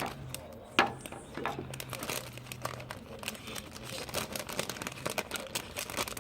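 Packaging of a new car parking light bulb being handled and opened: a dense run of small irregular crackles and rustles, with one sharper click about a second in.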